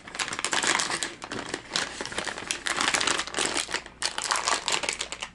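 Plastic packaging of a bag of soft-plastic crawfish lures crinkling as it is handled, with a short lull about four seconds in.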